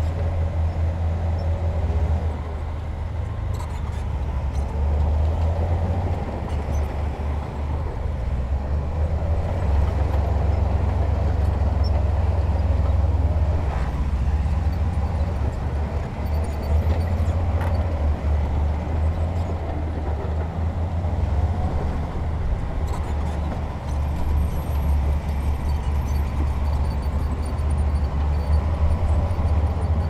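Heavy diesel engine of earthmoving machinery running steadily with a low rumble, with a few faint knocks.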